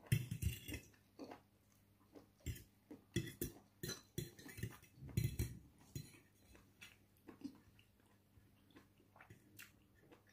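Metal fork clinking and scraping against a plate: a run of sharp clicks over the first six seconds or so, then fainter, scattered taps.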